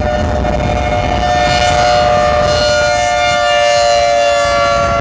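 Outdoor tornado warning siren sounding a steady, loud two-note wail that sags slightly in pitch, with wind rumbling on the microphone underneath.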